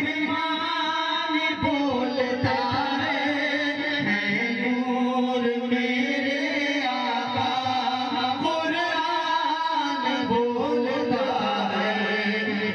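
Men singing a naat, a devotional song, into handheld microphones and heard through a PA loudspeaker system. The melody is sung in long, held, wavering notes with no break.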